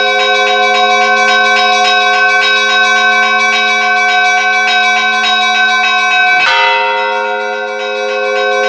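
Church bells ringing a peal: fast, even strikes of the smaller bells over the held hum of several larger bells. About six and a half seconds in there is a sudden break, and then the ringing carries on.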